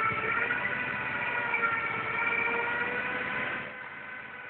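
Diesel-driven hydraulic seaweed baling press running: a steady whine over the diesel engine's noise. It drops noticeably in level a little over three and a half seconds in.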